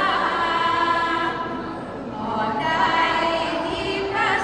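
A Thai sarabhanya group of women chanting Buddhist devotional verses together in a drawn-out, melodic style, with a short pause between phrases about two seconds in.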